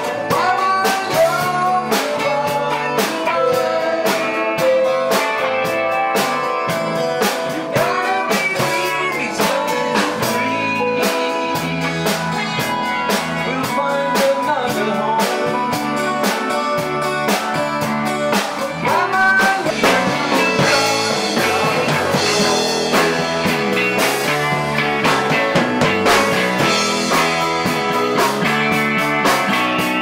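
Rock band music: electric and acoustic guitars with bending, sliding notes over bass and a steady drum beat.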